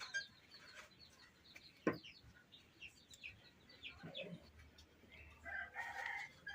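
Small birds chirping in quick short calls, with a chicken clucking near the end. A single brief sharp sound about two seconds in is the loudest event.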